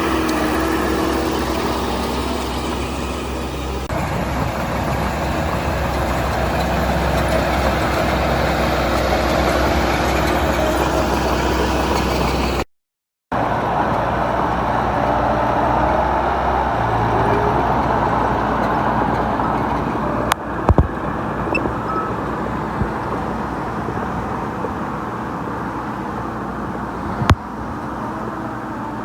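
Diesel engines of heavy earthmoving machinery running steadily. The sound cuts out for a moment near the middle, and a few sharp knocks come in the second half.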